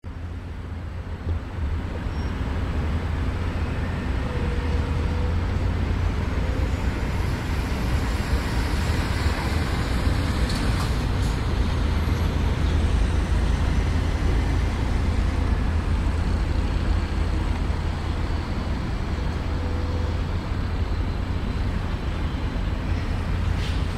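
Electric-hauled regional passenger train approaching on the tracks: a steady low rumble of wheels on rail that builds to its loudest about halfway through, with a few faint clicks.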